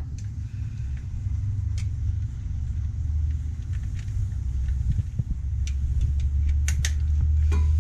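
Steady low hum of a running motor, with a few short clicks and clanks scattered through it.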